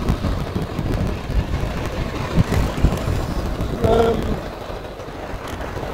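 Passing road traffic and wind rumble heard from a moving bicycle, with a couple of knocks about two and a half seconds in and a short pitched sound near four seconds.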